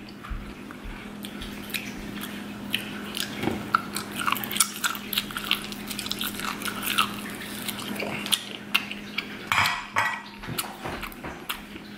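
Close-miked chewing of boiled octopus tentacle: many short wet smacks and clicks of the mouth, with the odd knock of a bowl being handled, over a steady low hum.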